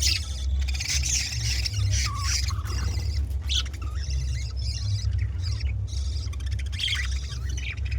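A colony of budgerigars chattering and squawking, many short overlapping calls, over a steady low rumble.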